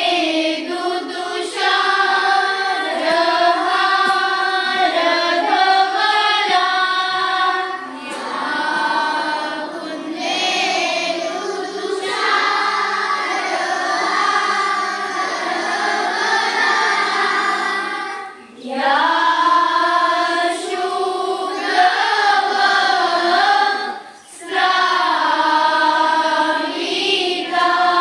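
A group of voices singing a devotional prayer together, in long held sung lines with short breath pauses about 18 and 24 seconds in.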